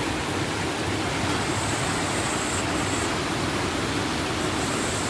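Water rushing over rocks in a shallow stream: a steady, even rushing sound.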